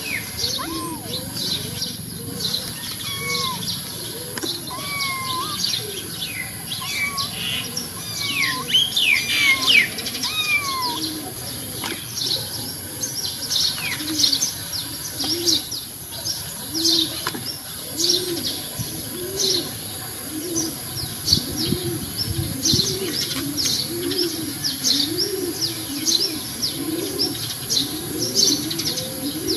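Birds calling: many small birds chirping in quick, high notes, with a dove cooing in a low, evenly repeated rhythm from about halfway through.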